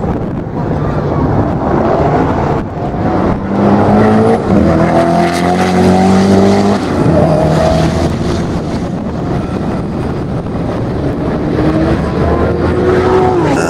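Koenigsegg Agera R's 5.0-litre twin-turbo V8 accelerating hard, its engine note climbing through the gears. The pitch rises and drops back at each upshift, loudest about four to eight seconds in, then fainter as it pulls away.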